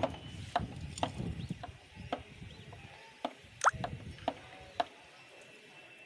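Sharp, irregular clicks, about two a second, at an Indian ringneck parakeet's wire cage, with one short rising squeak about three and a half seconds in. The clicks stop about a second before the end.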